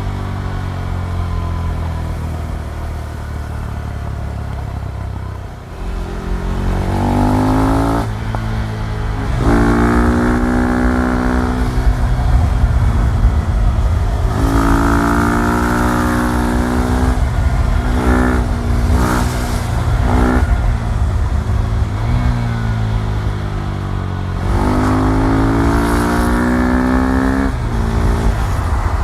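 KTM Duke 390's single-cylinder four-stroke engine revving, its pitch climbing and dropping back several times over steady low running, with a few short sharp blips about two-thirds of the way in.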